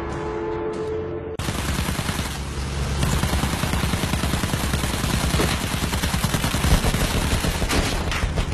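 Dense, rapid gunfire, sustained like a barrage. Music is heard at first and cuts out abruptly about a second and a half in, when the gunfire takes over.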